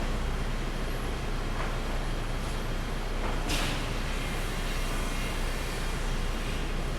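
Pallet sawmill machinery running with a steady noise, with a short hiss about halfway through.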